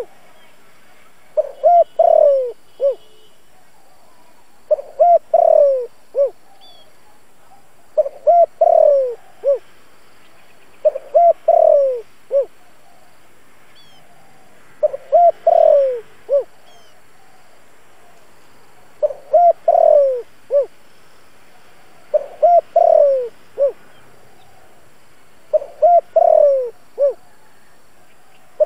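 A decoy spotted dove cooing: its advertising call, used to lure wild doves. Each phrase has a few short coos, a long falling coo and a short final note. The phrase comes eight times, about every three seconds, with faint chirps of other birds behind.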